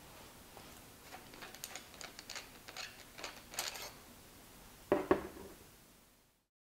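Small clicks and light rattles of a TIG torch being taken apart by hand, its ceramic cup removed and the tungsten and collet body handled, then two quick knocks about five seconds in as a ceramic cup is set down on the bench.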